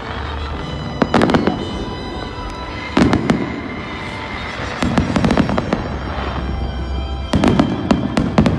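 Aerial fireworks going off in clusters of sharp bangs about every two seconds, over a steady rumble and crackle from the display.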